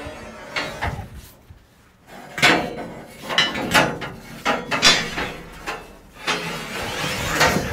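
Firebox grate shaker of a Soo Line 2-8-2 steam locomotive worked back and forth with a long bar: a string of irregular metal clanks and knocks, then a longer stretch of scraping near the end. This is the fireman's way of shaking the grates to break up clinkers.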